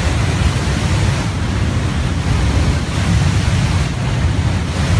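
Loud, steady rushing noise with no pitch, heaviest in the low end. It begins suddenly.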